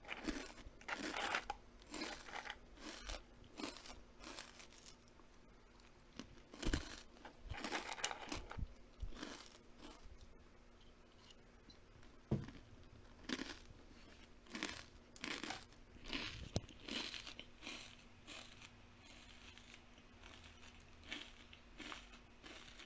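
Crunchy food being bitten and chewed: irregular bursts of crisp crunching with short pauses between them.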